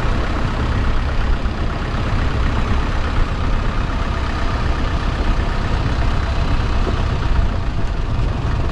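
Longtail boat engine running steadily while the boat cruises, a loud low drone with rushing noise on top.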